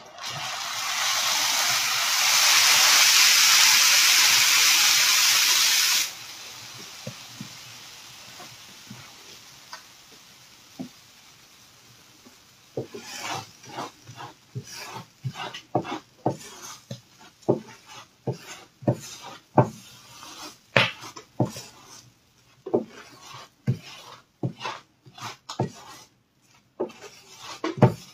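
Loud sizzling hiss of liquid on a large hot iron griddle, cutting off suddenly about six seconds in and leaving a fainter hiss that fades away. From about thirteen seconds on, a run of irregular scraping strokes, one or two a second, as a scraper works across the griddle surface.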